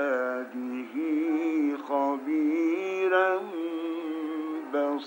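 A male reciter chanting the Quran in melodic tajweed style, drawing out long, wavering held notes with short breaks between phrases.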